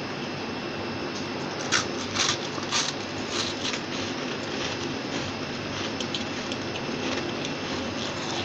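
Freezer frost being bitten and chewed close to the microphone. Three loud crunches about two seconds in are followed by softer, scattered chewing crunches, over a steady hiss.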